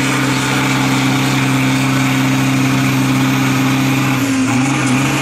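Tractor engine idling steadily with a deep, even note that wavers slightly about four seconds in.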